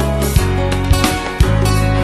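Background music: a song with held bass notes and sharp percussive beats.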